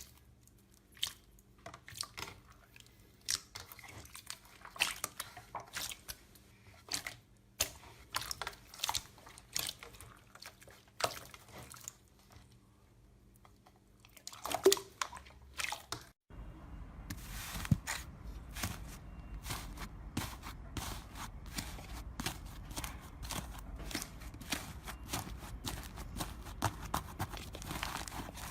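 Slime being squeezed and poked by hand: irregular sticky clicks, pops and crackles. After a brief break about halfway through, the crackling goes on over a steady background hiss.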